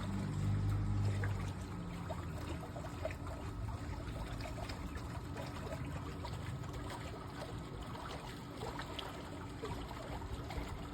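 Pool water trickling and lapping, with scattered small ticks and splashes. A low hum is heard at the start and fades out after about a second and a half.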